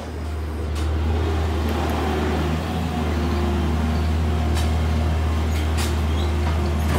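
Skid-steer loader's engine running steadily under load, growing louder over the first second as the machine draws near, with a few brief clanks.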